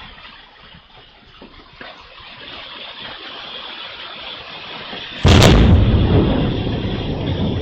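Steady hiss of storm rain, then about five seconds in a sudden very loud crack of close thunder that rolls on into a low rumble.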